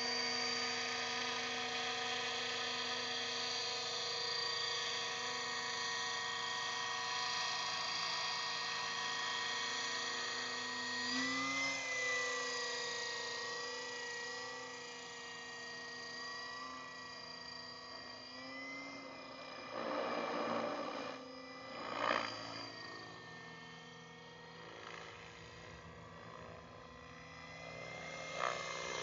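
Align T-Rex 600 radio-controlled helicopter whining at a steady pitch. About eleven seconds in the pitch starts to waver and the sound grows fainter as it climbs away, with two louder swells a little after twenty and twenty-two seconds.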